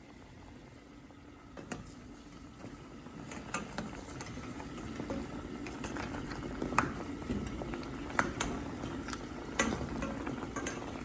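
A pot of food bubbling on the stove while a metal spoon stirs it, knocking against the pot now and then; the bubbling grows a little louder after the first few seconds.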